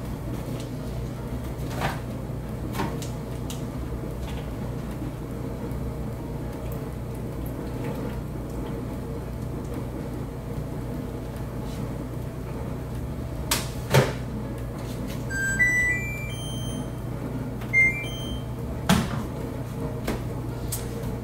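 Front-loading washing machine's control panel beeping: short electronic tones stepping up in pitch as its buttons are pressed and the wash is set going. Before it come a few plastic clicks and one sharp knock as fabric softener is added to the detergent dispenser, over a steady low hum.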